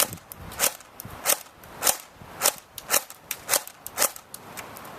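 Airsoft gun firing semi-automatic: a run of about eight sharp shots a little over half a second apart, with fainter ticks between, stopping about four seconds in.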